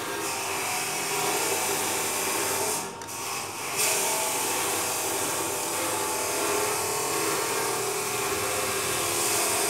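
Steady whirring noise of a motor-driven machine, dropping off briefly about three seconds in.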